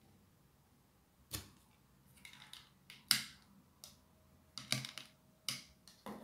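A flat plastic pressing tool clacking on a tabletop as clay is pressed flat under it: irregular sharp taps and clicks, starting about a second in.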